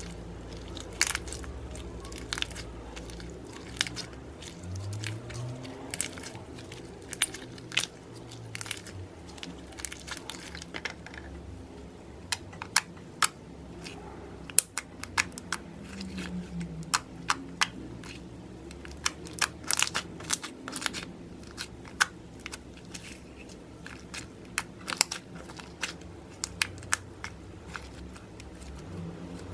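Hands stretching, squishing and folding glossy metallic slime, making frequent short, sharp clicks and pops.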